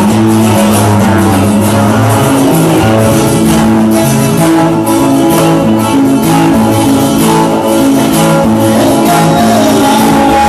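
Band music led by plucked and strummed guitars over a moving bass line, an instrumental passage without singing.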